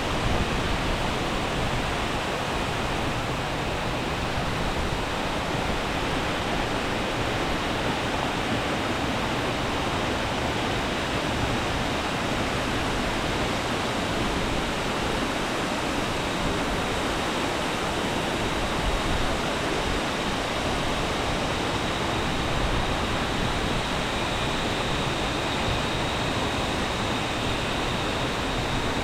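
Waterfall rushing steadily: a dense, even wash of water noise with no breaks. A faint, high, steady tone joins it near the end.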